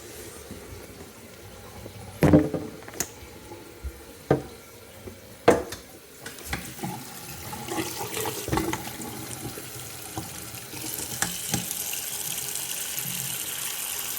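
Bathroom tap water running into a sink basin, a low hiss that gets louder and steady from about three-quarters of the way through. Several sharp knocks and clicks sound in the first half.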